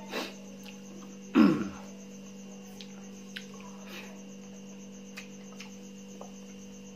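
A person eating rice and boiled pork by hand from a steel bowl: faint small clicks of fingers and mouth, and one short falling throat sound about a second and a half in, over a steady electrical hum.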